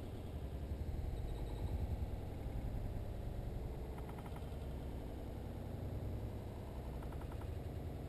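Low, dull outdoor rumble from a GoPro's built-in microphone, slowed down along with the slow-motion footage, which gives it an eerie, murky drone. A few faint clicking sounds come about halfway through and again near the end.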